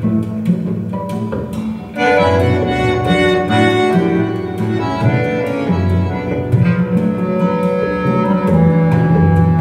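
Music from a 45 rpm LP on a TechDAS Air Force One turntable, played through AudioMachina Maestro GSE loudspeakers. Strong low bass notes run throughout, and the music grows louder and fuller about two seconds in.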